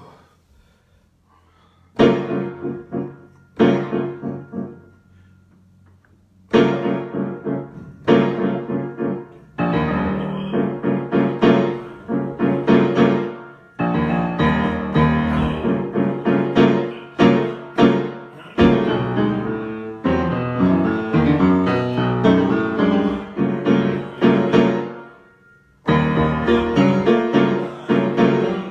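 Solo piano improvisation: a few separate chords struck and left to ring with pauses between them, then more continuous playing, with a short lull near the end before the playing resumes.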